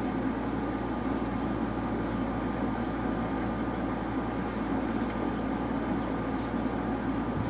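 A steady low droning rumble with no clear start or stop, the unexplained 'strange noise in the sky'.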